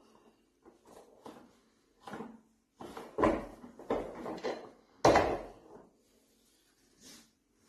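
Irregular knocks and scraping of hard objects being handled, the two loudest knocks about three and five seconds in.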